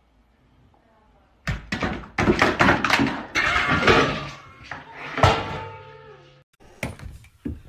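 A loud run of bangs and clattering knocks, starting about a second and a half in and cutting off suddenly near the end.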